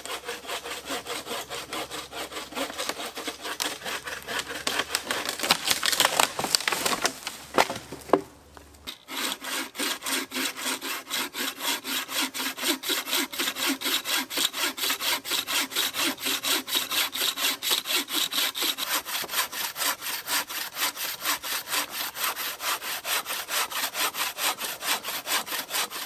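Wooden-framed bucksaw cutting through dead oak in quick, even push-pull strokes, about three a second. A single sharp knock about eight seconds in briefly breaks the rhythm before the steady sawing resumes.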